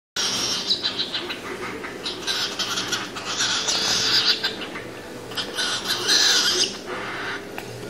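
Cockatiel chattering and chirping in raspy stretches while it feeds.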